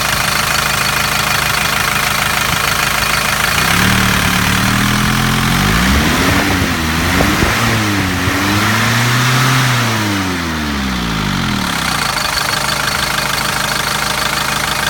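Mercedes-Benz OM616 2.4-litre four-cylinder diesel idling with a steady clatter, then revved up and down a couple of times from about four seconds in before settling back to idle near the end.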